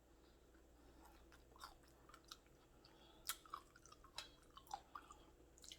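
Faint close-up chewing of food, with soft mouth clicks and smacks coming irregularly, a few of them louder.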